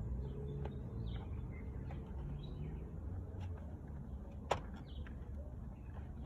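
Small birds chirping faintly over a low steady rumble, with one sharp click about four and a half seconds in.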